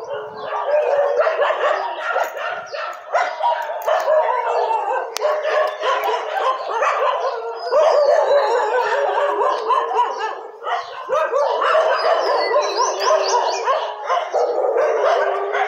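A pack of street dogs barking and howling together in a loud, continuous chorus of overlapping voices, with a brief lull about ten seconds in.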